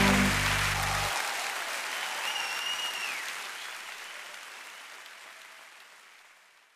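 Applause and crowd noise as the hymn's last chord cuts off about a second in, then fading out steadily to silence; a brief high tone sounds through the clapping about two seconds in.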